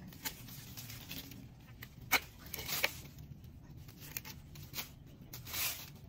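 Long-handled pruning loppers cutting mulberry branches: a handful of sharp snips, the loudest about two seconds in, with leafy branches rustling as they are handled near the end.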